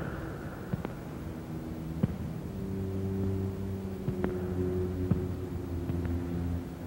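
A low sustained drone of several held tones that shift to a new chord about two and a half seconds in, with a few isolated sharp taps scattered through it.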